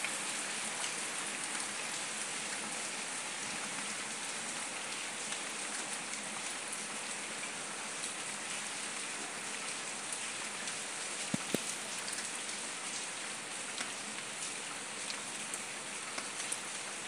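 Steady rain falling on wet interlocking paving stones, with scattered drop ticks. Two sharper taps come close together about eleven seconds in.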